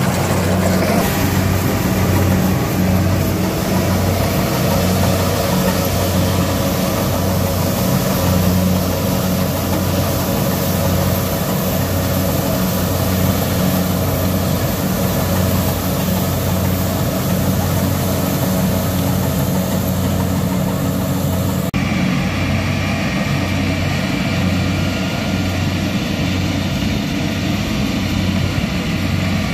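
Kubota DC-70 combine harvester's diesel engine running steadily with a low, evenly pulsing hum. About 22 seconds in, the sound changes abruptly and loses much of its high hiss.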